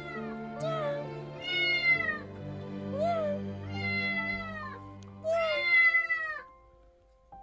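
Kittens meowing: about five high-pitched cries, each dropping in pitch at its end. Soft background music underneath fades out near the end.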